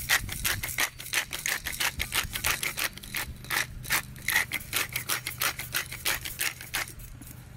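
Pepper mill being twisted to grind black pepper: a rapid, even series of clicks, several a second, that stops shortly before the end.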